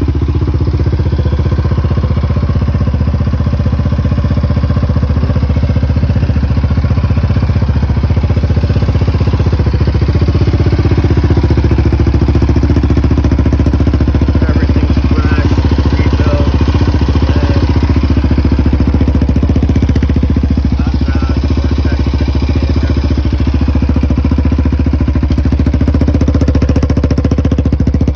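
Yamaha Raptor 700R ATV's single-cylinder four-stroke engine idling steadily after a cold start, just after a full engine rebuild.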